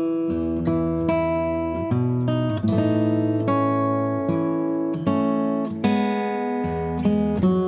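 Background music: acoustic guitar, plucked and strummed notes ringing on.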